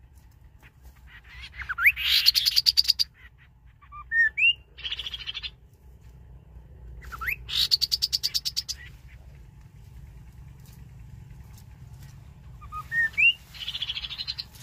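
Rufous-capped babbler song: four phrases, each made of one or two rising whistles that lead into a fast rattling trill.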